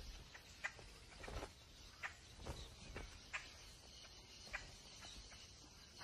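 Vultures at a carcass: faint, scattered taps and scuffles, roughly one a second, over a quiet outdoor background.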